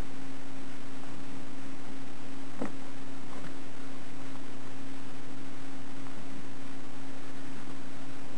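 Steady low hum with a faint hiss, under a few faint clicks and rustles of thin stripped wires being twisted together by hand, the clearest about two and a half seconds in.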